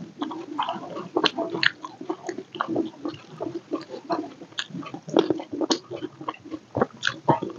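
Close-miked mouth sounds of a person biting meat off a piece of chicken on the bone and chewing it, many short irregular clicks.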